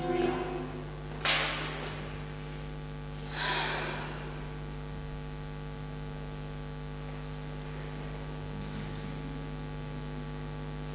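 Steady electrical mains hum on the recording, after music stops right at the start. Two brief noisy sounds come about a second and three and a half seconds in.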